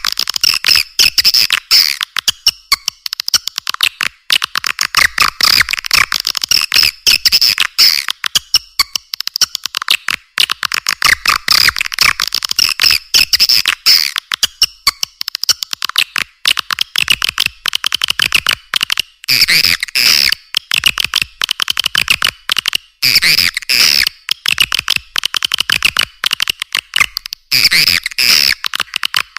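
Swiftlets twittering: a dense, continuous stream of rapid high chirps and clicks, as used for a swiftlet-house lure call.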